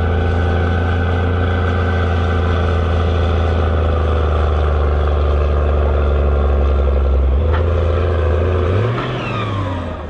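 Case IH Magnum 7230's six-cylinder turbo diesel running steadily at high revs, loaded by a heavy pulling sledge. Near the end the engine note dips, rises and falls as the pull ends, with a falling whistle, and the sound fades away.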